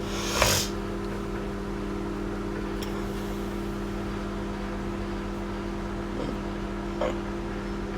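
Microwave oven running with a steady electrical hum. A brief rustle comes about half a second in, and a few faint clicks follow later.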